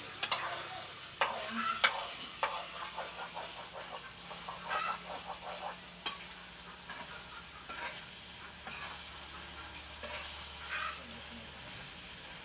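A spatula stirring and scraping chopped mushrooms around a small steel pan over a wood fire, with irregular clicks and scrapes against the metal over a low frying sizzle.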